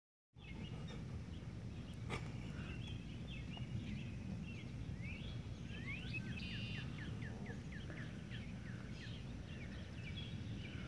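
Birds chirping and calling over a steady low rumble of outdoor background noise, with a quick run of repeated short chirps in the middle.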